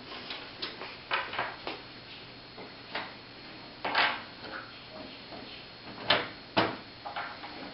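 Screws being undone from the side panel of an Aerocool Cyclone computer case: scattered small clicks and knocks of metal being handled, with a few louder knocks about four and six seconds in.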